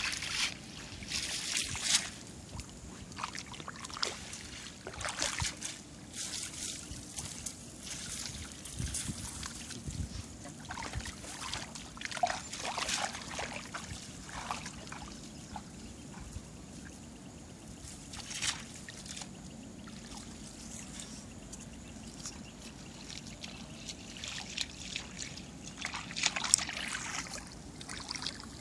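Water trickling and splashing from a wet cast net as it is held up and handled, in irregular spurts.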